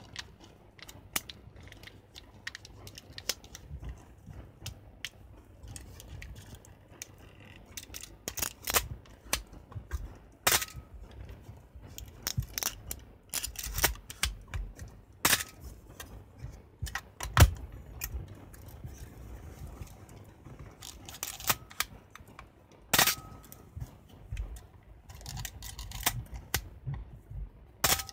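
Canon A-1 35 mm SLR being loaded with film: a series of sharp mechanical clicks and clacks from the camera's body and mechanism, a few with a brief metallic ring, over the soft rustle of gloved hands and film.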